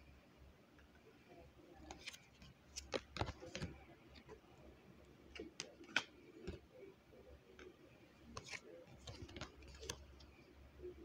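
Cards of the Kawaii Tarot deck being handled and flipped through: faint, scattered clicks and taps of card stock, with the sharpest click about six seconds in, as a card is set on a small wooden easel.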